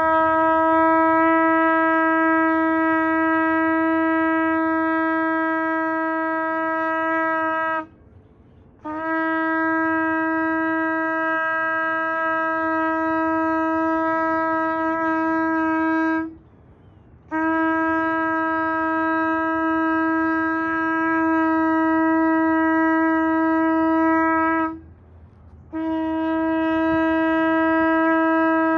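Shofar blown in long, steady single-note blasts of about seven to eight seconds each, with a pause of about a second for breath between them. One blast is already sounding at the start, and three more follow.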